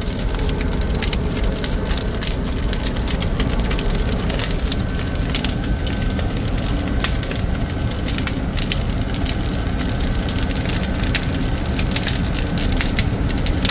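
Fire burning hard in a steam boiler's furnace, seen through the open fire-hole: a steady deep rumble with constant crackling.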